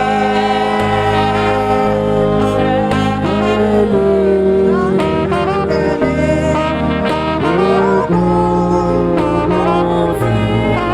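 Instrumental music: a gliding, sustained melody line over held chords, the harmony changing about every four seconds.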